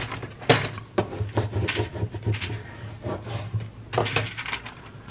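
Paper rustling and light taps and clicks as hands handle and press down glued papers on a craft table, at irregular intervals.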